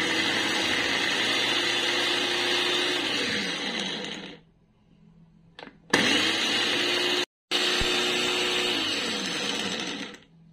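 Small electric food processor run in two pulses, its blade chopping basil, fish oil and Parmesan into pesto. Each run holds a steady whir, then winds down with falling pitch when released. There is a pause of about a second and a half between the two runs.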